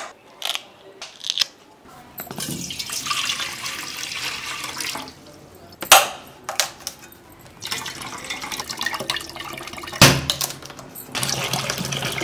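A billhook knife chopping into the tops of tender green coconuts in sharp strikes, a few at a time, alternating with coconut water pouring in a stream into a steel pot.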